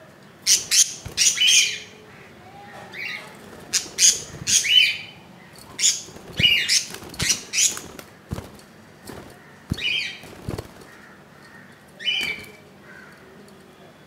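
Budgerigar chirping and squawking: a string of short, sharp calls in quick clusters of two or three, with short gaps between them.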